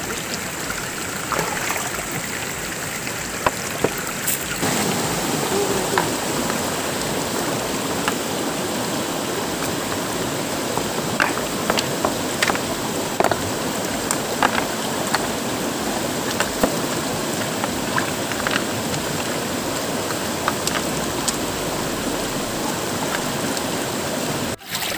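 Shallow stream running steadily over stones, with scattered small clicks; the rushing gets louder about four and a half seconds in.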